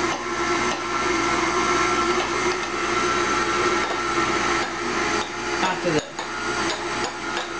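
A small electric motor running with a steady, even-pitched hum.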